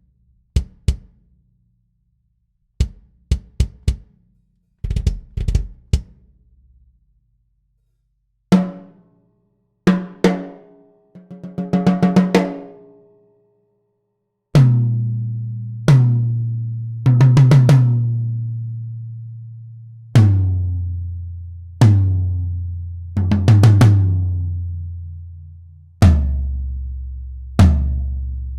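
DW Collector's Series almond/maple drums struck one at a time. A few short, sharp hits come first, then a tom struck several times with a pitched ring, then lower toms whose hits ring out for a second or more, each drum lower in pitch than the last.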